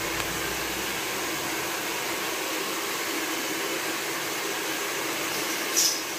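A steady rushing noise, with one short, louder high hiss near the end.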